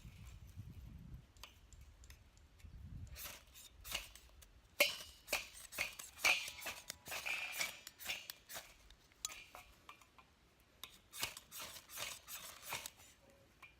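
A run of short, sharp scraping strokes and clicks, bunched in two flurries near the middle and near the end, over a faint low rumble at the start.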